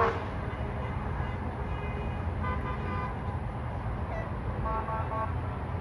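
Vehicle horns honking in short beeps from a passing convoy of trucks and cars, over a steady low rumble of highway traffic. A few beeps come about two and a half seconds in, then a quick run of about four more near the end.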